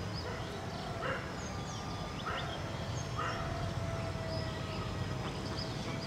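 Outdoor ambience of steady background noise with small birds chirping and three short animal calls a little over a second apart in the first half, over a faint steady hum.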